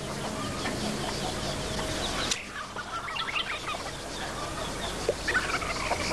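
Farmyard fowl, mostly chickens, clucking and calling in a run of short, scattered calls.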